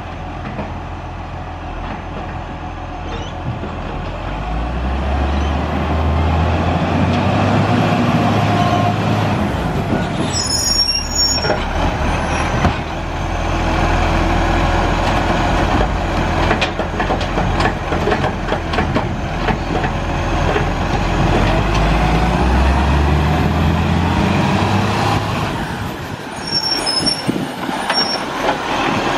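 Iveco side-loader garbage truck's diesel engine revving up twice, about four seconds in and again about twenty-two seconds in, as its automated arm lifts and tips wheelie bins. Between the revs come knocks and clatter as a bin is emptied into the hopper.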